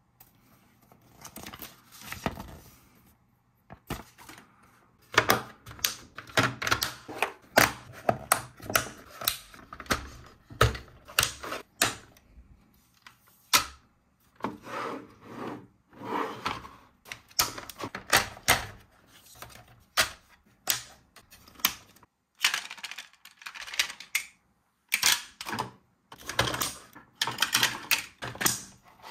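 Hard plastic toy race-track pieces being handled and fitted together: an irregular run of sharp plastic clicks and clacks, softer for the first few seconds, with short pauses between bursts.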